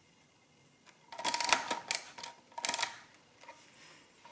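Multifix E1R oscillating-segment mechanical calculator clicking and clattering in two bursts as its mechanism is worked by hand: the first about a second in, lasting nearly a second, the second shorter.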